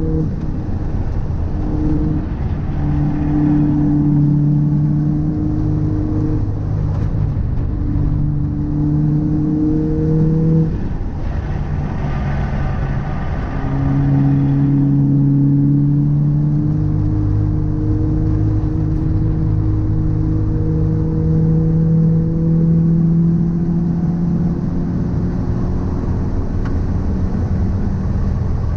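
A car being driven, its engine drone rising slowly in pitch and breaking off several times, as at gear changes, over steady road rumble. The car has an abnormal noise that the owner suspects comes from a drive shaft or a wheel hub.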